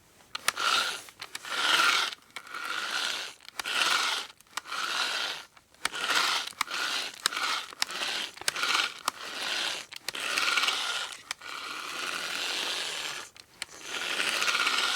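Manual hand drill being cranked, the bit grinding and rasping in a run of short strokes about one a second, with clicks between strokes. Near the end it turns in one longer, unbroken stretch.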